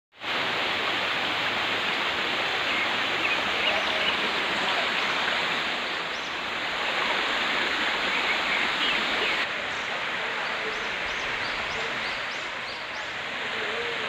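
Small forest waterfall: a steady rush of water falling and running over rocks, with faint short high chirps near the middle and again near the end.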